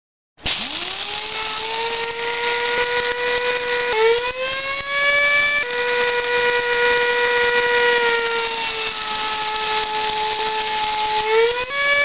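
Electric coffee grinder switched on about half a second in, its motor whining up to speed over a rough grinding noise. It runs with a steady whine whose pitch jumps up around four seconds in, drops back near six seconds, sags a little, and rises again near the end.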